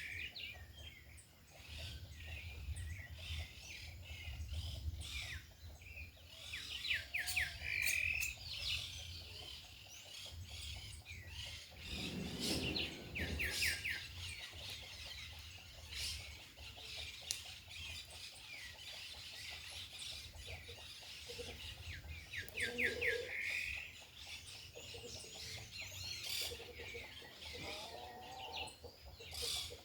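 Small birds chirping and calling, with a fast trill repeated several times, over a steady low wind rumble on the microphone. A few lower clucks from hens come in now and then.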